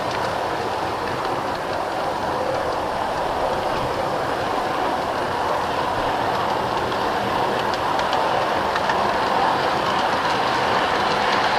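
G-scale model train running along garden railway track, heard from a car riding in the train: a steady rolling rumble of wheels on rail with a few faint clicks.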